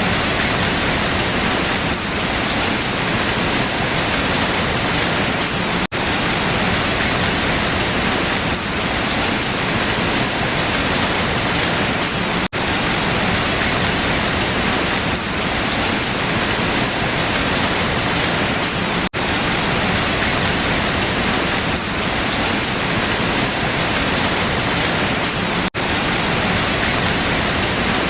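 Steady rain falling on leaves, an even hiss of many drops, with a very brief dip in level about every six and a half seconds.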